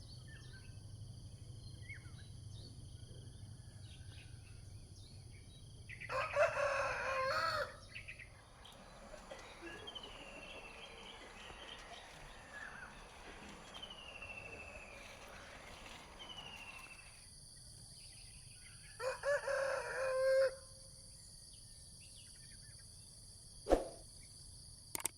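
Rooster crowing twice, once about six seconds in and again near twenty seconds, each crow lasting about a second and a half. Small birds chirp and a steady insect drone runs underneath.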